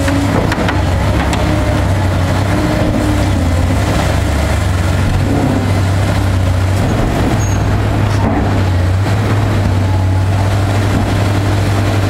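Link-Belt hydraulic excavator's diesel engine running steadily at working speed while it operates hydraulic demolition shears, a loud constant low drone.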